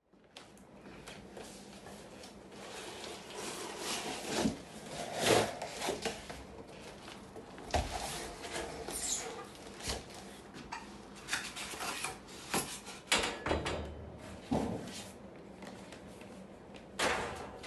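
Unpacking a flat-packed metal storage cabinet: a large cardboard box and its panels are handled, giving irregular knocks, thumps, scrapes and cardboard rustling.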